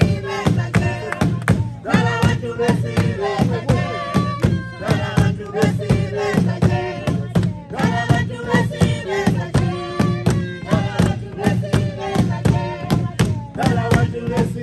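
Traditional African group song: several voices singing together over a steady, driving percussive beat.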